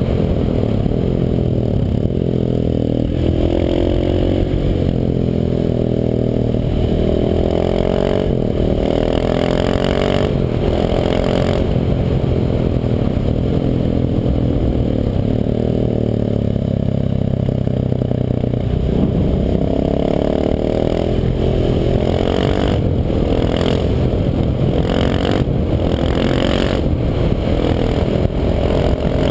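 KTM 690 SMC supermoto's single-cylinder engine with an Akrapovic exhaust, ridden on the road: the revs rise and fall again and again as it accelerates and shifts through the gears.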